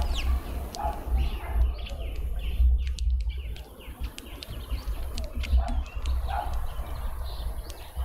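Small garden birds chirping and chattering, with scattered sharp ticks, over a steady low rumble.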